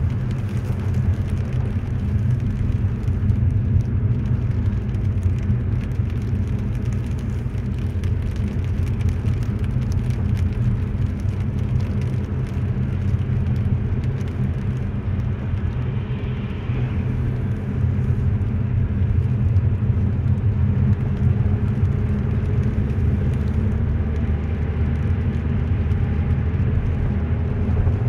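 Car cabin noise while driving: a steady low rumble of the engine and tyres on a wet, snow-covered road, heard from inside the car.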